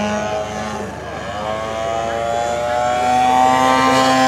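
Engine and propeller of a radio-controlled Edge 540 aerobatic model plane in flight. Its pitch dips about a second in, then rises steadily over the next few seconds as it is throttled up.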